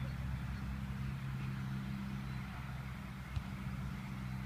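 Low, steady hum of an engine running, with one faint knock about three and a half seconds in.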